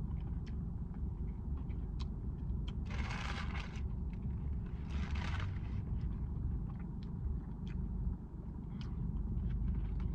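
Steady low rumble of a car cabin with the engine idling. Two brief rustling noises come about three and five seconds in, with a few faint clicks between them.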